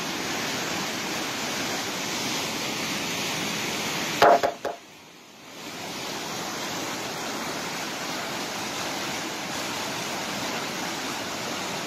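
Floodwater of the Bregalnica river, swollen by heavy rain, rushing fast beneath a bridge as a steady roar of water. About four seconds in there is a brief loud pitched blip, and the rushing drops away for about a second and a half before coming back.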